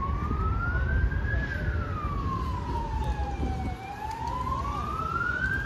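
Emergency vehicle siren wailing in a slow rise and fall: its pitch climbs for about a second and a half, falls for about two seconds, then climbs again near the end, over a low background rumble.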